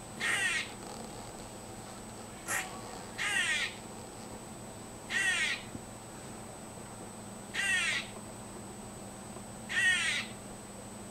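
Squirrel calling: five short raspy calls, one about every two seconds, each made of quick falling sweeps in pitch, with a brief sharp click between the first two.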